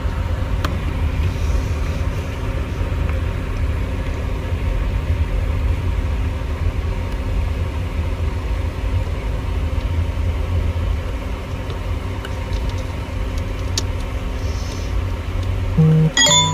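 Steady low rumble with a constant hum, broken by a few light clicks, and a short loud tone just before the end.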